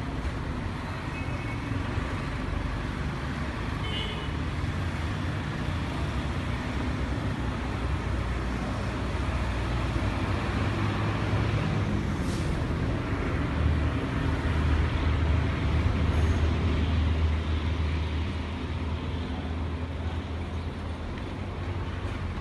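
Busy street traffic: a steady mix of running engines and tyre noise, with a couple of short horn beeps in the first few seconds. A deeper engine rumble swells past the middle and then fades, as a heavy vehicle goes by.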